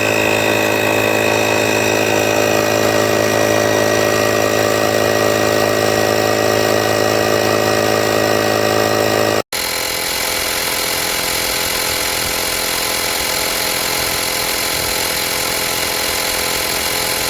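Portable 12V tyre-inflator air compressor running with a steady motor-and-piston drone. It cuts out for an instant about nine and a half seconds in, resumes with a slightly different tone, and stops at the end.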